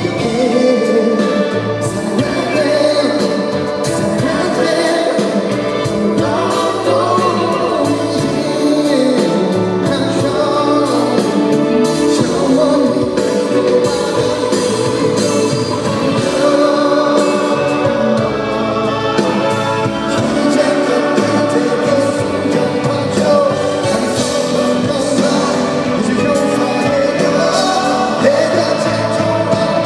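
Live pop ballad performance: a male singer singing over band backing through a concert sound system, continuous music throughout.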